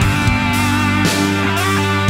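Rock music with electric guitar over a steady beat.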